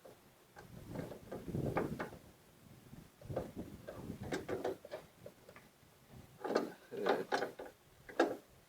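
Lawn tractor hood parts knocking, clicking and rattling as they are handled and fitted together, in three irregular clusters with a sharp knock near the end.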